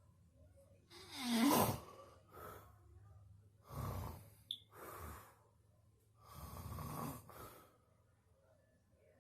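Loud snoring over about three breaths, each a long noisy snore followed by a shorter breath. The first, about a second in, is the loudest.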